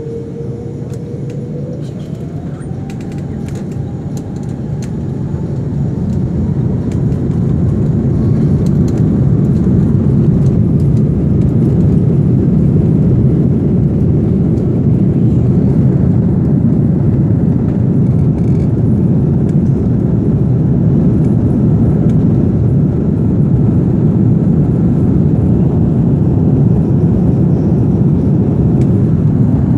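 Airbus A330 jet engines spooling up to takeoff thrust, heard from inside the cabin: a whine climbs steadily in pitch over the first several seconds while a deep rumble swells and then holds loud and steady as the airliner accelerates down the runway.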